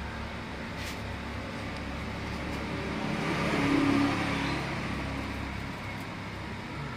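A motor vehicle passing by: engine and road noise swell to a peak about four seconds in, then fade, over a steady low hum that stops near the end.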